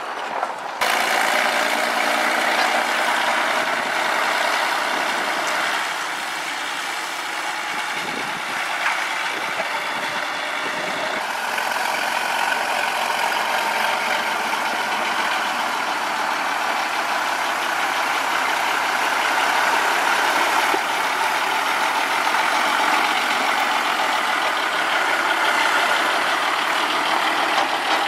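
Sugar cane train running: a loud, steady mechanical noise of the locomotive and its cane bins, which changes about eleven seconds in.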